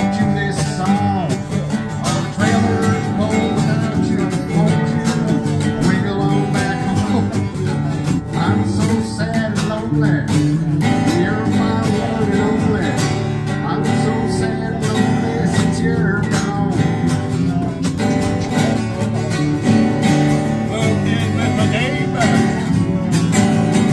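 Acoustic guitars playing a country song in A, continuous strummed chords.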